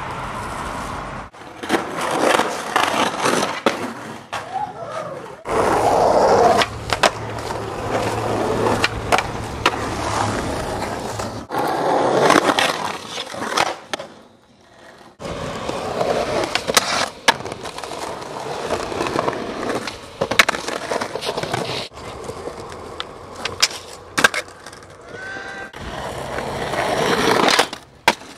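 Skateboard sounds from several clips in a row: urethane wheels rolling on concrete, sharp pops and landings, and the board and trucks scraping along ledges and curbs.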